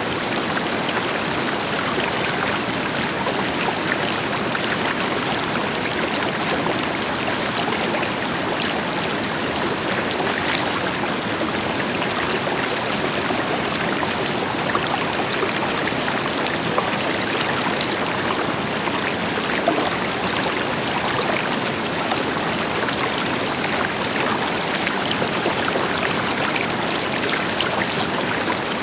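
River water flowing over rocks, a steady rushing with small splashes and gurgles, backed by the deeper rush of a distant waterfall.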